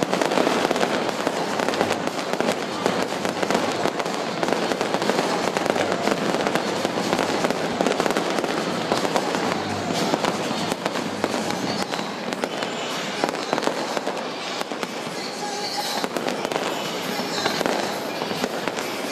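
Aerial fireworks display, with shells bursting and crackling in a dense, continuous barrage of bangs.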